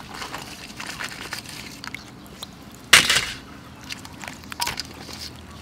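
Live blue crabs being handled in a steel basin: scattered clicks and scrapes of crab shells and legs against each other and the metal. One louder clatter about three seconds in is the loudest sound.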